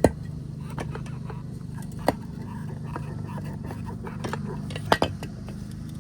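Sharp metallic clinks and knocks, four in all with two close together near the end, over a steady low hum.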